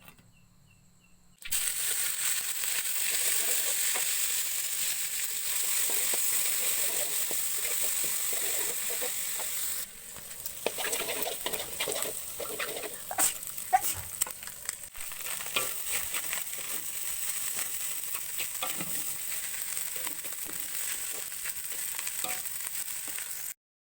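Food frying in hot oil in a pan for nasi goreng: a steady loud sizzle starts suddenly. From about ten seconds in, a spatula scrapes and taps against the pan as it is stirred.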